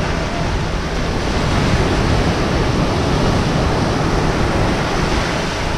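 Small ocean waves breaking and washing up the sand: a steady rush of surf, with wind buffeting the microphone.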